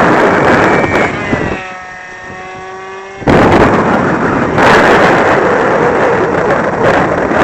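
Strong wind buffeting the microphone, with a lull about a second and a half in that lets the steady whine of the GWS Corsair model plane's small electric motor and propeller through, its pitch sliding slightly down. The wind noise comes back suddenly a little after 3 seconds in.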